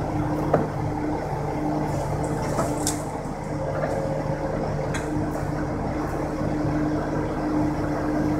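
Heavy diesel machinery of a tracked log loader and an off-highway log truck running steadily, with a whine that comes and goes and a few sharp metal clanks.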